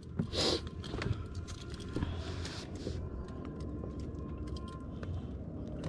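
Scattered light clicks and small knocks of metal fishing gear being handled on the aluminium floor of an inflatable boat, over a steady low wind rumble.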